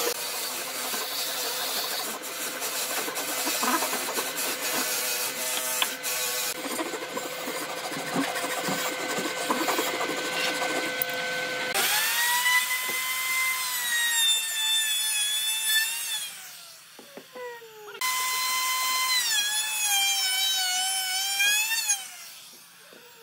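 A Japanese-style handsaw cutting through a small pine block, over a steady hum. Then a DongCheng DMR02-12 electric wood router starts with a rising whine, its pitch sagging as it cuts into a pine strip, and is switched off and winds down. It starts again about two seconds later, cuts, and winds down again near the end.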